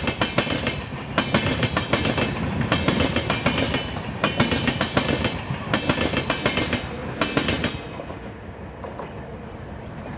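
Express train's LHB coaches passing at speed, their wheels clattering over rail joints in a group of sharp clicks about every second and a half. The clicking stops near the end as the rear generator car goes by, leaving a fading rumble.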